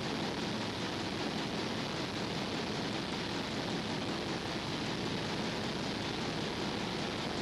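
Steady, even hiss with no other sound in it.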